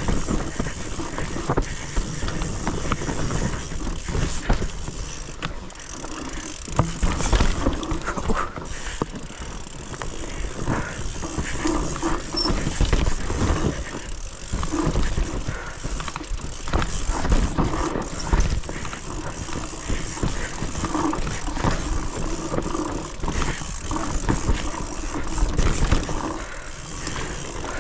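Mountain bike descending a steep, rough trail: tyres grinding over dirt and rock, with constant rattling and frequent knocks from the bike over bumps.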